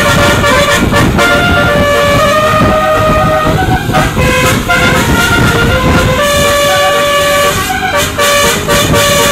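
Tour bus telolet horn of the Basuri type playing a melody of held notes that step up and down in pitch, with a long held note near the end, over the rumble of the bus and traffic.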